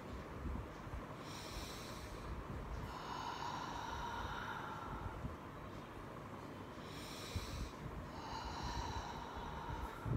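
A woman breathing deeply twice, each time a short inhale followed by a longer, slower exhale.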